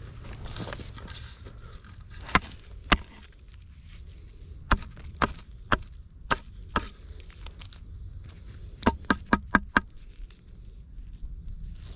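A series of sharp knocks: two, then five at about two a second, then six in quick succession, over a low steady outdoor rumble.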